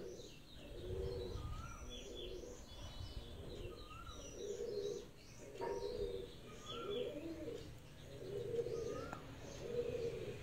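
Birds calling: a low cooing repeated about once a second, with short higher chirps and whistles over it.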